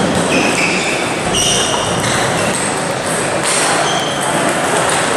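Busy table tennis hall: ping-pong balls clicking on tables and bats at neighbouring matches over a steady, echoing hall noise, with a few short high squeaks.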